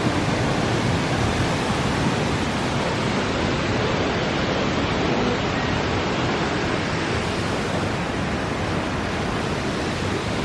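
Waterfall rushing steadily at close range: a loud, even roar of falling water.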